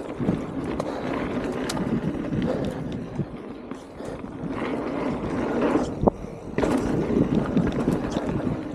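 Mountain bike rolling fast down a dirt singletrack: tyre rumble with the chain and frame rattling over bumps, and a sharp knock about six seconds in.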